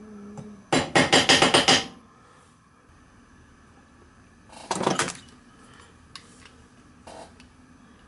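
Hammer tapping quickly on a stainless steel strap against the back of a vise, about eight sharp metallic strikes in a run of a second, flattening a high spot by the rivet. A shorter clatter of metal follows a few seconds later.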